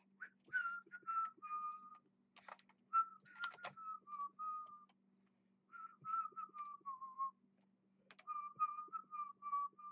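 A person whistling a tune in short phrases of held notes that step gently downward, with a few keyboard taps and mouse clicks in between.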